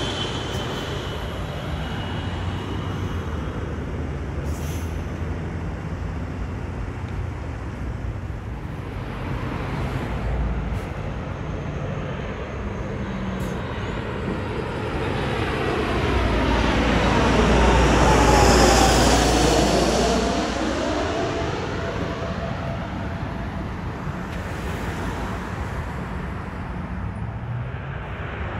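Road traffic, with a heavy truck going by close, loudest about two-thirds through, its tone dropping in pitch as it passes. At the start the high whine of a business jet that has just flown over fades out.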